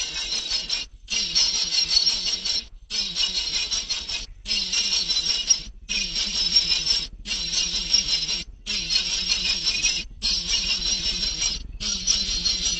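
Dense, high-pitched chirping from a group of baby birds, in stretches of about a second each, broken by sudden short gaps of silence as in a looped or edited recording.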